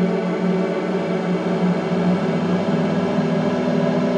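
Continuous electronic noise drone from a small rig of effects pedals, many held tones stacked over a strong low hum, shifting slightly in texture.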